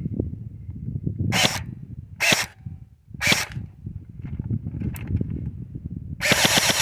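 Battery-powered airsoft electric gun firing three short bursts of rapid shots about a second apart, then a longer burst starting near the end, with a low mechanical clatter in between.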